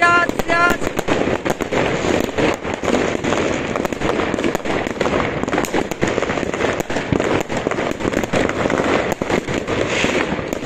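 Many fireworks and firecrackers going off at once: a dense, continuous crackle of sharp bangs with no pause.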